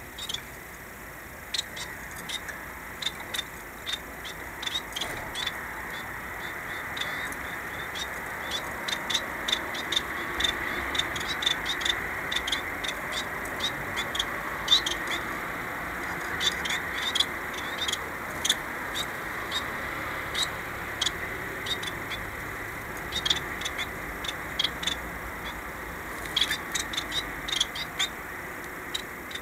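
Small caged finches giving many short, high chirps in scattered runs, over steady background noise that swells a little through the middle.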